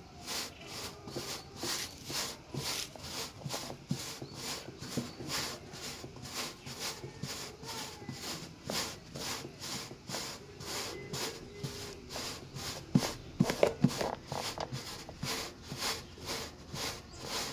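A hand patting and pressing flatbread dough out on a floured metal baking top, a soft brushing pat repeated evenly about twice a second, with a few sharper knocks near the end.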